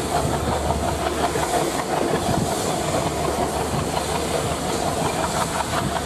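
Indian Railways WP-class 4-6-2 steam locomotive rolling slowly past with its train, steam hissing and wheels clacking steadily over the rail joints.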